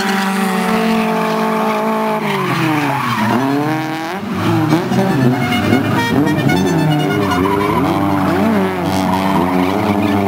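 Drift cars' engines held at high revs, dropping about three seconds in, then revving up and down rapidly as they drift in tandem, over the squeal of sliding tyres.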